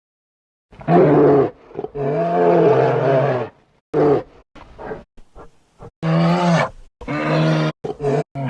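Big-cat roaring sound effect: a run of loud roaring calls, the longest about a second and a half, with short grunts between.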